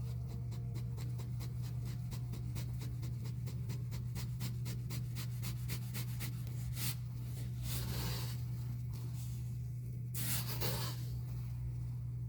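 Sand crunching: a rapid run of small crisp crunches, about five a second, for roughly six seconds, then three longer gritty crunches about seven, eight and ten seconds in. A steady low hum runs underneath.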